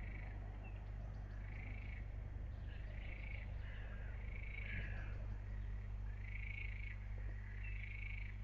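An animal calling over and over, each call about half a second long and about one a second, above a steady low hum.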